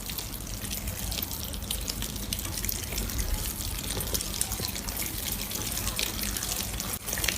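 Slime being squeezed and worked by hand: a steady run of rapid wet clicks, crackles and pops, with a brief break about seven seconds in.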